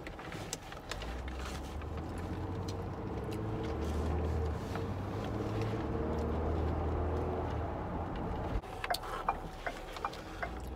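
Car engine and road noise heard from inside the cabin while driving: a steady low hum that grows louder over several seconds, then drops off suddenly about eight and a half seconds in, followed by a few light clicks.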